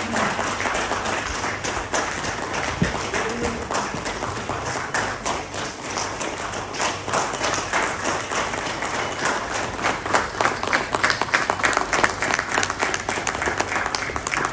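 Audience applauding: many hands clapping, a steady mass of claps that grows a little louder and sharper in the last few seconds.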